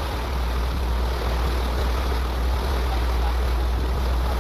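Twin diesel inboard engines of a motor yacht running at low speed, a steady deep rumble, with a hiss of water and wash over it.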